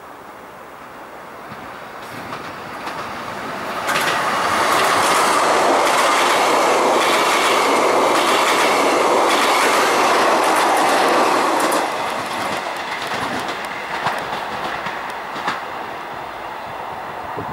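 ES1 'Lastochka' (Siemens Desiro RUS) electric multiple unit passing close at speed. A rushing noise of wheels on rails builds, turns loud and steady for about eight seconds with clickety-clack over rail joints, then falls away to a lower rumble broken by a couple of sharp clicks.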